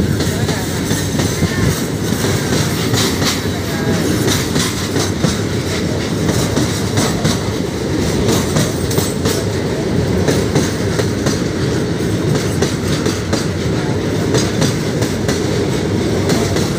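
Covered goods wagons of a freight train rolling past close by: a steady, loud rumble with frequent wheel clicks over the rail joints and an occasional faint wheel squeal.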